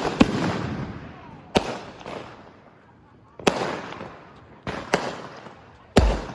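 Fireworks going off: a string of sharp bangs, about eight in six seconds, each trailing off with a rolling echo. A deeper boom comes near the end.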